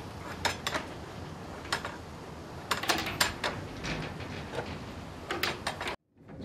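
Wooden sluice-gate lever and chain of a watermill knocking and clunking in irregular sharp knocks as the gate is worked to let water in, over a steady rush of water. The sound drops out briefly near the end.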